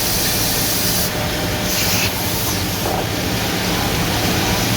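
A CNC horizontal drilling machine for woodworking panels running, with a steady low hum under a constant hiss. A brief louder, higher hiss comes about two seconds in.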